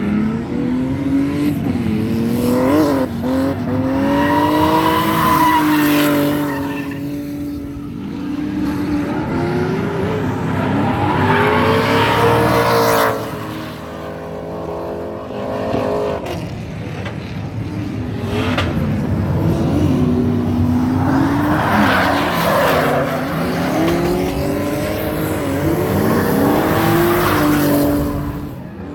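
Drift cars sliding past, their engines revving up and down over the screech of tyres, with a brief lull about halfway through.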